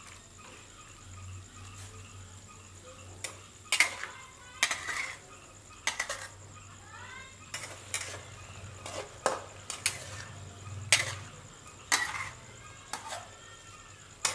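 Metal spatula stir-frying beef in a stainless-steel wok: irregular clanks and scrapes against the pan, about one a second, with a few short squeaks of metal on metal about halfway through.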